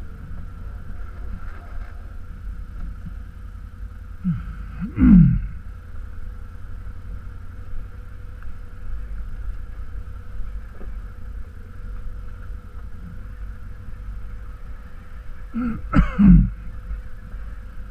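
ATV engine running steadily at low speed over a rocky trail. Twice, about five seconds in and again near the end, a short loud vocal sound with falling pitch cuts in over it.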